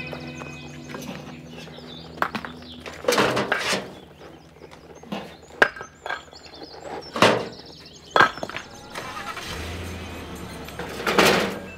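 Junk and debris being cleared out, heard as a series of irregular crashes and clatters with a few loud knocks. Background music fades out at the start.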